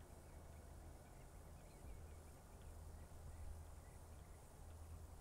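Faint, steady low drone of a distant four-engine transport aircraft's engines as it rolls along the runway, with small birds chirping faintly now and then.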